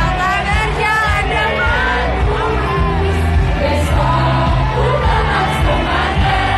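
Live pop music from a stage PA: female voices singing a bouncy idol-pop song over a band track with a steady beat.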